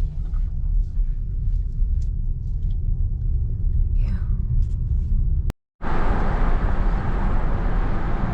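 Steady low road rumble of a car driving, heard inside the cabin. About five and a half seconds in it drops out for a moment, then returns as louder, hissier road and tyre noise.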